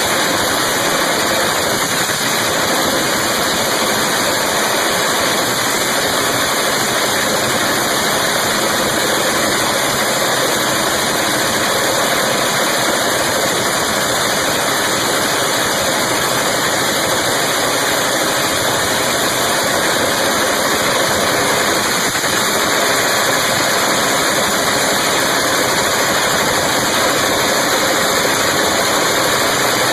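Turbocharged drag-racing engine running steadily at idle, a loud, even, rasping noise with no revving.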